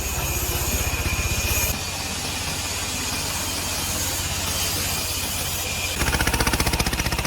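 Engine of a log-cutting machine running with a fast, even pulse. The sound changes abruptly about two seconds in and again near the end.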